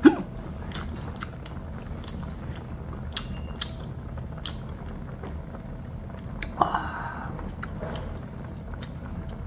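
A person eating hot sujebi (hand-torn wheat dough soup): chewing and mouth sounds with scattered small clicks of metal chopsticks on the bowl, and one short louder sound about two-thirds of the way through.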